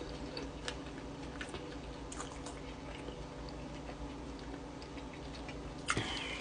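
A person chewing a bite of a hash-brown sandwich with small wet mouth clicks, then biting into it with a crunch about six seconds in.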